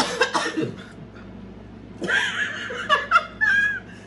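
A woman gasping for breath and laughing, winded from chugging a beer.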